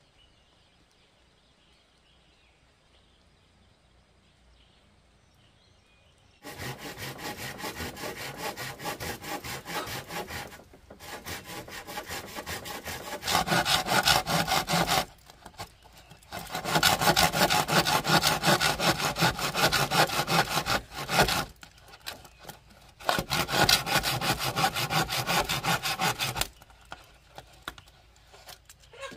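Near silence for about six seconds, then rapid, rhythmic rasping strokes in four bouts separated by short pauses, stopping near the end.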